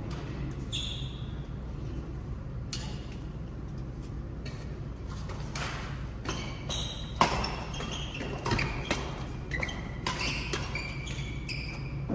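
Badminton rally: sharp pops of rackets hitting a shuttlecock, several shots a second or two apart with the loudest about seven seconds in, mixed with short high squeaks of court shoes on the floor, over a steady low hum.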